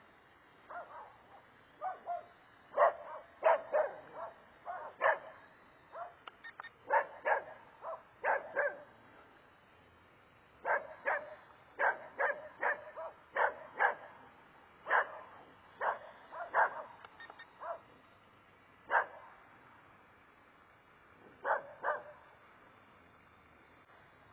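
A dog barking repeatedly in uneven bursts of short barks, with a few brief pauses between the bursts.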